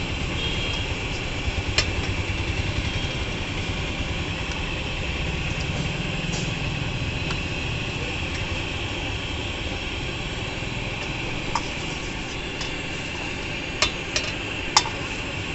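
A steel ladle stirring in a wok, with a steady rumble and hiss underneath; the ladle clinks sharply against the wok once about two seconds in and three times near the end.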